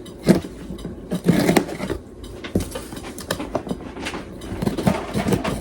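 Packing tape on a cardboard box being cut and pulled loose, with irregular scrapes, rips and clicks as the box is worked open.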